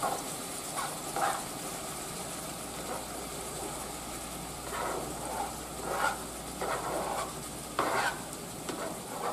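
Ground beef sizzling steadily in a skillet, with short scraping bursts several times as a knife pushes diced bell peppers and onion off a plastic cutting board into the hot pan.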